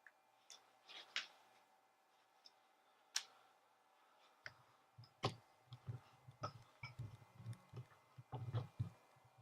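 Faint, scattered small clicks, then from about halfway a denser run of soft handling knocks and taps.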